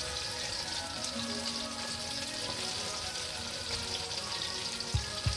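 Battered chicken and vegetable shashlik skewers sizzling as they deep-fry in hot oil, a steady hiss. Soft background music plays over it, and a low beat comes in near the end.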